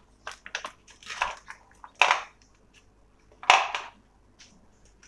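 Frozen curd cubes being pushed out of a silicone mould and dropping onto a plate: a series of short knocks and crunching clatters, the loudest about two seconds in and again about three and a half seconds in.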